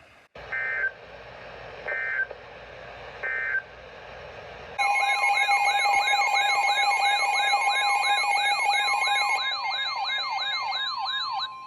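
NOAA Weather Radio SAME header: three short buzzy data bursts about a second and a half apart, opening a tornado warning. Then the loud steady warning alarm tone starts, with a weather radio's warbling siren of about two and a half rising sweeps a second on top. The siren stops near the end while the steady tone carries on.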